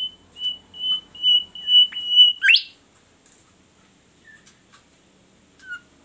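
Caged bimoli songbird singing: a run of about six short, clear whistled notes on one steady pitch, ending about two and a half seconds in with one quick downward slur. A few faint short chirps follow.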